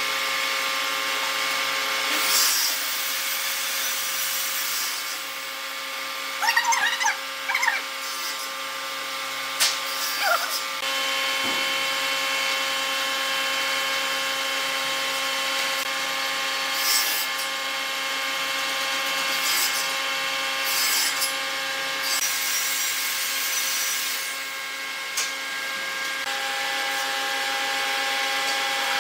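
Ballpoint pen strokes and a steel ruler sliding and scraping on a pine board while lines are marked out, in short scrapes with a few squeaky, wavering strokes. Under them runs a steady background of held tones.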